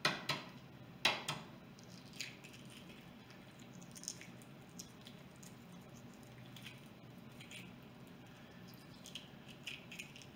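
Hard-boiled egg being cracked and peeled by hand: a few sharp taps of the shell against a hard surface in the first second and a half, then faint, scattered crackles of shell coming away, a little busier near the end.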